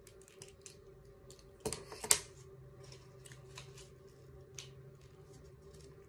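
Handheld lighter being clicked again and again to get it lit, with two sharp clicks close together about two seconds in and lighter ticks around them, over a faint steady hum.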